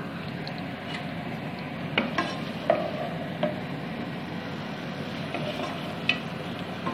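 Chopped onions and green chillies sizzling in hot oil in a pot, stirred with a wooden spoon that knocks against the pot a few times, most sharply about 2 seconds in and again near the end.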